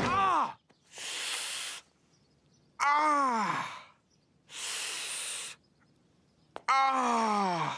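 A voice giving a falling groan three times, with a breathy rush between the groans; each one is cut off cleanly into dead silence, like an edited-in sound effect.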